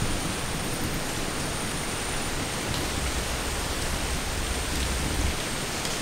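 A steady, even hiss of outdoor noise, with a low rumble that comes in about three seconds in and stops about five seconds in.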